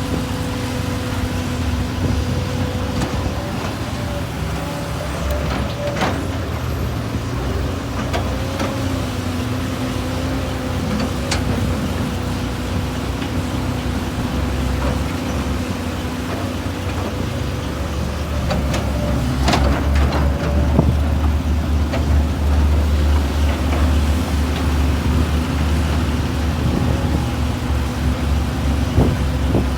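Heavy excavator working: diesel engine and hydraulics running under load with a steady held tone and a few sharp knocks, the engine drone growing louder and deeper about two-thirds of the way through.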